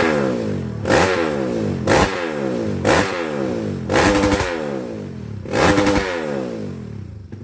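Racing motorcycle engine being free-revved: about six sharp throttle blips roughly a second apart, each time the revs snapping up and then falling back, with the sound dying down near the end.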